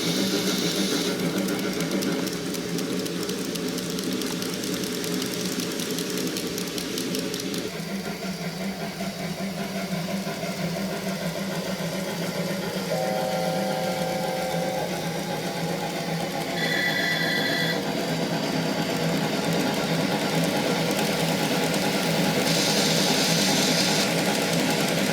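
KATO N-scale model train with three 8620 steam locomotives running, a steady whirr and rattle of wheels on track, mixed with simulated steam-locomotive sounds from a KATO Sound Box. About halfway through, a short steady chord-like whistle sounds, followed by a brief higher pulsing tone, and there are hissy steam-like patches near the end.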